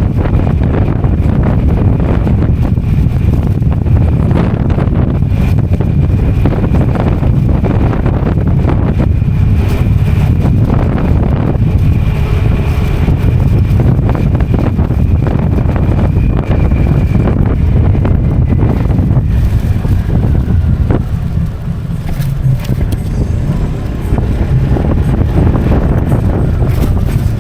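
Motorcycle riding along a road, engine running steadily under heavy wind rumble on the microphone, easing off briefly about three-quarters of the way through.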